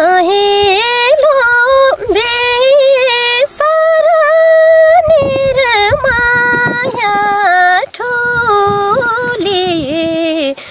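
A woman singing a Nepali folk song solo, holding long notes decorated with quick wavering ornaments, with brief breaks for breath a few times.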